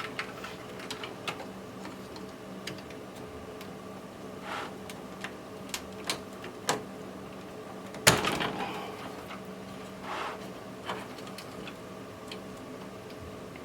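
Plastic cable connectors being worked loose and unplugged from a PC motherboard by hand: scattered small clicks and knocks, with one louder clack about eight seconds in.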